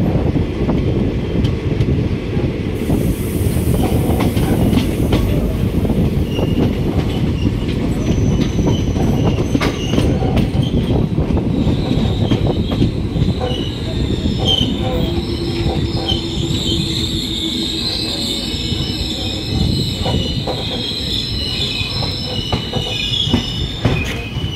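Visakha Express passenger coach running on the rails, heard from its open doorway: a steady heavy rumble with scattered clicks from the wheels. From about halfway through, high-pitched squealing joins in as the train slows into the station.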